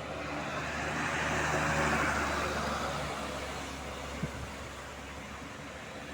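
A road vehicle driving past, its engine and road noise swelling to a peak about two seconds in and then fading, with a short click about four seconds in.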